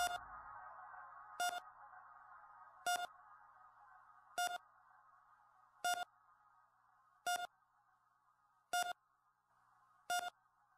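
A short electronic beep repeating steadily about every one and a half seconds, the same pitch each time, over the end of the music as it fades out.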